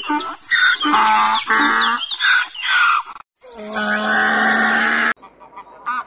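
Donkey braying in repeated hee-haw cycles, high squealing in-breaths alternating with lower drawn-out brays, cut off abruptly about five seconds in. A goose honks faintly near the end.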